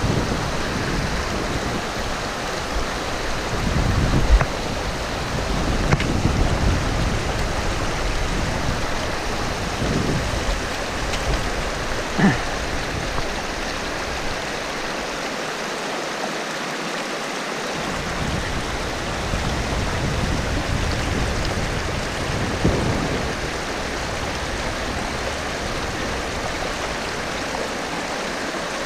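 Rushing water of the Garona, a Pyrenean mountain river, flowing steadily close by, with a few short low rumbles.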